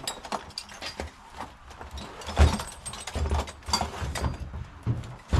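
A heavy 55-gallon drum of scrap copper being worked up a car-trailer ramp into a truck bed: scraping, clattering and knocking of metal, with a heavy thud about two and a half seconds in and another near the end.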